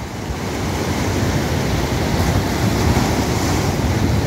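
Wind buffeting the microphone over the steady wash of sea waves, a continuous rushing noise with a heavy, uneven low rumble.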